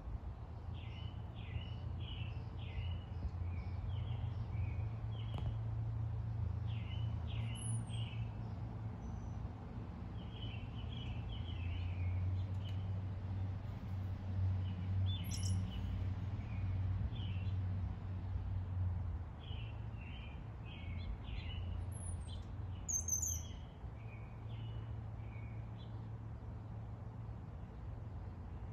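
Songbirds chirping in short repeated phrases, with a few high, thin whistled notes now and then, over a steady low rumble.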